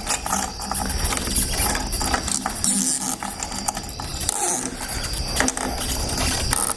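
Key being turned back and forth in an old sliding glass door lock cylinder, with scattered clicks and scraping from the mechanism. The lock has just been sprayed with WD-40 but is still stiff to turn.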